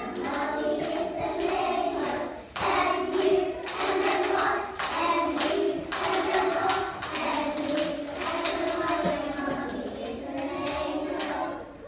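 A group of young children singing together in unison, with some hand clapping.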